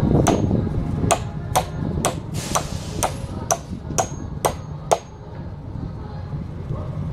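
Hammer toenailing a 2x4 concrete form board: about ten sharp strikes, roughly two a second, some leaving a brief high ring, stopping about five seconds in.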